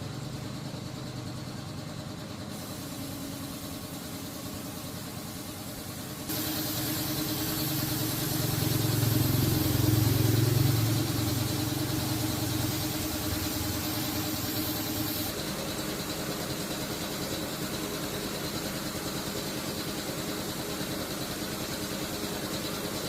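An engine running steadily at idle. It gets louder about six seconds in, is loudest for a few seconds after that, and drops back to a steadier, quieter running about fifteen seconds in.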